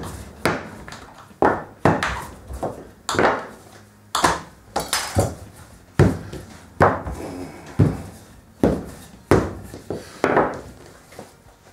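Wooden rolling pin working laminated croissant dough on a stainless-steel worktable: a sharp knock with each stroke, about one a second, each fading quickly.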